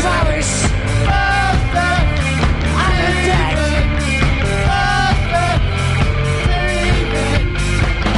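Punk rock band playing live: electric guitars, bass and drums with a steady driving beat, and a voice singing over it.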